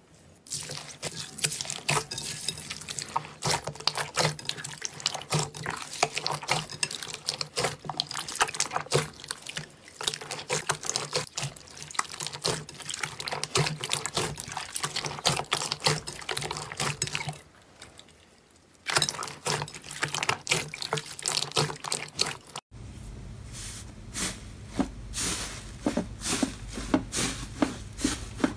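Hands squishing and kneading glossy slime mixed with small clear beads, a dense run of wet crackles, squelches and pops. A short pause comes about two-thirds through. In the last seconds a thick brown slime is squeezed, with its pops over a low steady hum.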